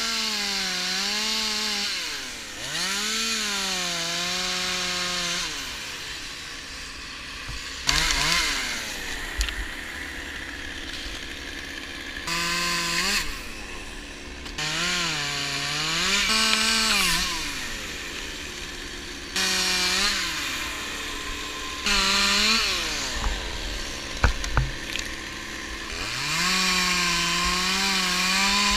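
Petrol chainsaw revving up and down in repeated bursts while cutting wood, its engine pitch rising and falling, with quieter stretches between cuts.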